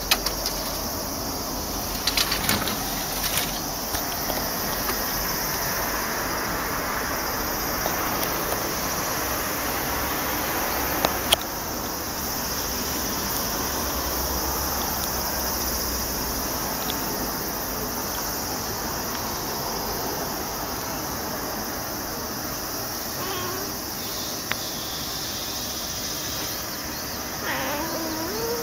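A white cat meows once near the end, with a fainter short call a few seconds before, over steady outdoor background noise and a few sharp clicks.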